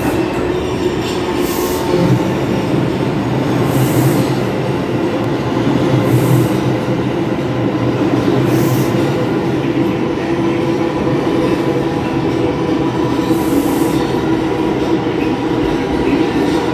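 Bombardier R142 subway train pulling into an underground station: a steady loud rumble of its wheels on the rails, broken by a few short, high hisses.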